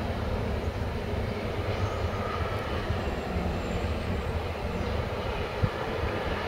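Two GM-engined NOHAB diesel locomotives of CFL's class MY running steadily as they pull a cement train slowly past, with a deep, even engine sound. A single brief knock comes about five and a half seconds in.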